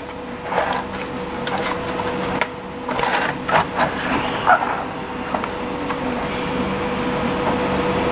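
3D-printed plastic parts being handled and fitted together: scattered light knocks, scrapes and clicks of plastic on plastic, busiest in the middle, over a steady electrical hum.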